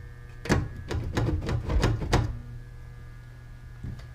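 Rapid clatter of clicks and knocks as the dead air-conditioner blower fan and motor are turned by hand and jiggled, over a steady electrical hum. The fan does not start: the motor is burnt out or jammed.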